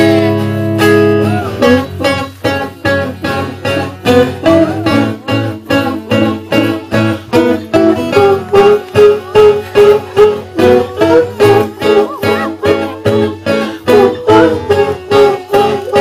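Live acoustic guitar playing an instrumental passage. A chord rings out, then about a second and a half in it turns to quick rhythmic picking, about four strokes a second, under a repeating melody line.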